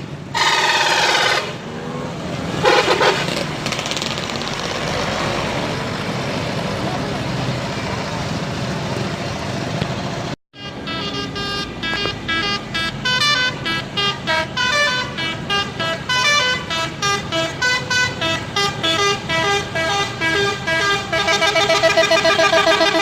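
Bus 'telolet' multi-tone air horn. It gives two blasts, about a second in and about three seconds in, over a running vehicle. Then it plays a fast tune of short notes that change pitch, several a second, ending in louder held notes near the end.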